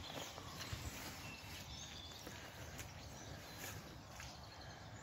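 Quiet woodland ambience: a low, even background rumble with a few short, faint bird chirps and a few soft clicks.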